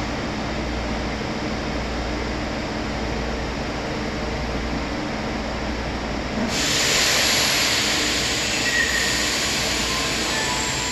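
Kyoto Subway Tozai Line train standing at the platform with a steady low rumble. About two-thirds of the way in, a sudden loud hiss of air starts and slowly eases off as the train readies to depart.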